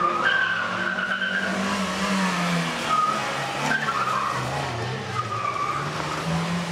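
Rally car engine revving up and down as the car is driven hard through a tight turn, its tyres squealing several times on the tarmac.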